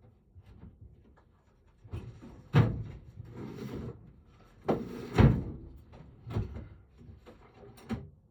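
Tools and metal lock parts being handled on a workbench: four sharp knocks and clunks, the loudest about two and a half and five seconds in, with rummaging and rustling between them.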